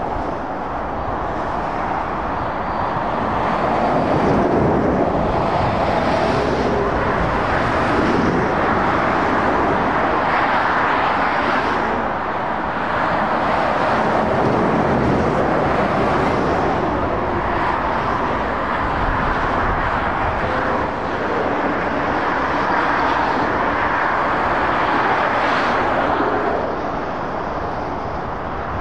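Road traffic passing: tyre and diesel-engine noise from heavy lorries and cars, swelling and fading several times as vehicles go by.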